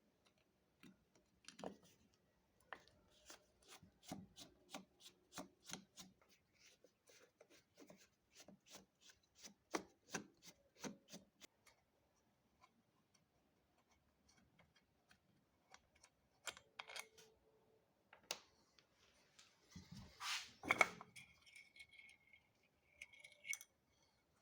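Faint clicking, tapping and rubbing of hand tools and small parts being handled, the clicks coming thick and quick for the first half and then scattered, with a louder scrape about 20 seconds in and a faint squeak near the end.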